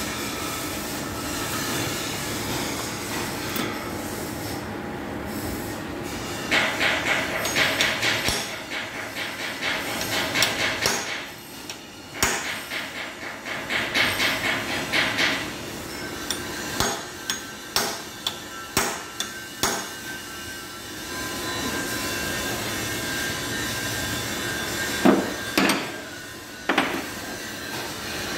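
Hammer blows on the steel shaft and casing of a twin-lobe Roots compressor being dismantled. Several runs of rapid blows come first, then single strikes about a second apart, and a few louder ringing blows near the end.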